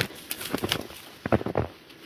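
Footsteps crunching through deep, heavy wet snow while brushing through snow-laden reeds and weeds, several steps in quick succession.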